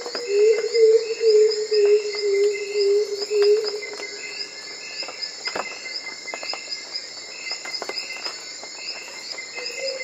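Black-throated coucal calling: a run of about eight deep, loud hoots over the first four seconds, dropping slightly in pitch. Behind it runs a steady chorus of insects with high repeated chirps, which continues after the hoots stop.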